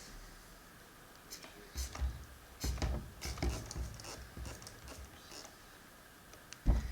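Handling noises: a run of irregular light knocks, taps and rubs, then one sharp thump near the end.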